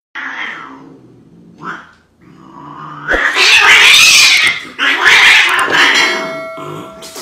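Cats yowling and screeching in a fight. There are two short yowls, then two long, loud screeching outbursts from about two seconds in, with a thump just after the first one starts.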